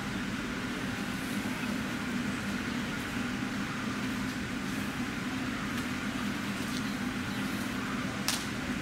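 Steady low mechanical hum with a haze of background noise, broken by a single sharp click about eight seconds in.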